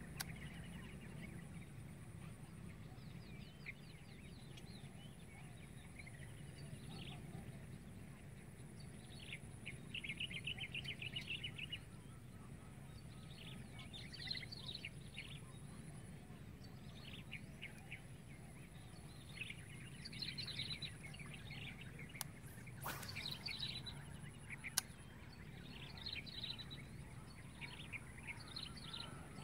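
Several birds chirping and calling on and off, with a rapid trill about ten seconds in, over a faint steady low hum. Two sharp clicks come near the end.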